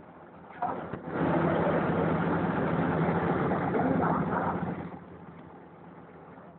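An engine running with a steady low hum, starting about a second in and fading away after about four seconds.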